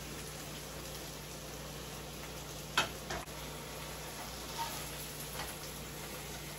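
Fajita-blend vegetables sizzling steadily in a frying pan on an electric stove, with two sharp clinks of kitchenware against the pan about three seconds in and a few lighter taps after.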